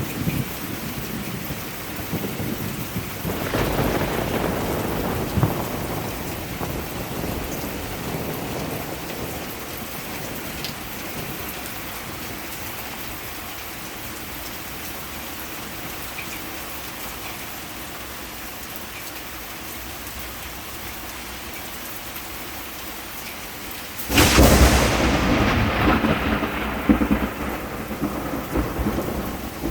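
Heavy rain falling steadily, with a roll of thunder about four seconds in and a sudden loud thunderclap about 24 seconds in that dies away over several seconds.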